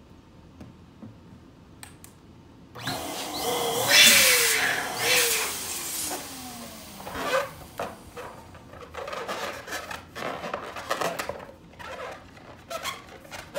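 Electric balloon pump runs for about three seconds, starting a few seconds in, blowing up a latex balloon, with two falling squeaky tones during the fill. After that come scattered rubbery squeaks and rubbing as the inflated balloon is handled at its neck.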